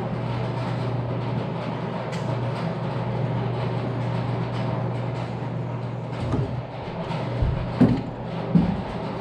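A steady low hum throughout, with a few short metal knocks and clunks in the last few seconds as tools work at prying the water pump off a New Holland TR98 combine's engine.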